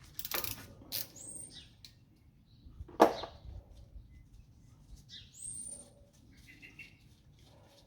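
Hand ratchet with a T30 Torx bit working the small screw that holds the front brake rotor to the hub: a few ratchet clicks at the start, then one sharp knock about three seconds in. Twice there is also a short high chirp that rises and then holds.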